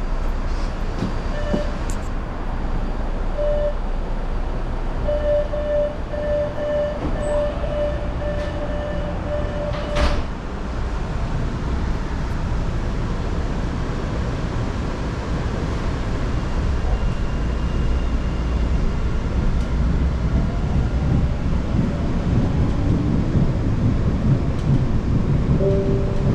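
MBTA Orange Line subway car running between stations, heard from inside the car: a steady rumble of wheels and running gear that grows louder in the second half. A steady high tone comes and goes during the first ten seconds, and there is one sharp knock about ten seconds in.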